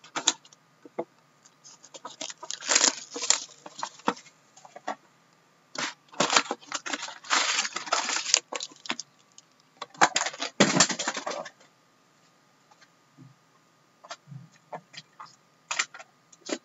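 Foil-wrapped trading card packs crinkling as they are handled and torn open, in three main bursts with scattered clicks and rustles between them.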